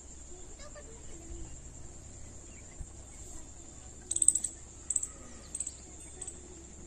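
Steady high drone of insects, with short bursts of high chirping about four seconds in and a few more single chirps after.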